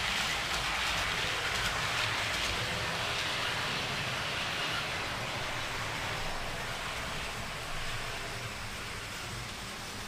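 Model railway trains running on the layout's track: a steady rattling hiss of wheels on rail and small motors, loudest in the first few seconds and easing off a little towards the end.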